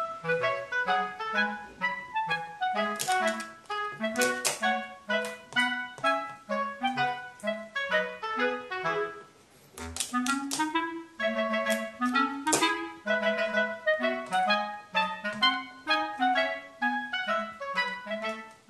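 Background music: a light, bouncy tune of short staccato notes over a regular bass line, with a brief pause about nine and a half seconds in.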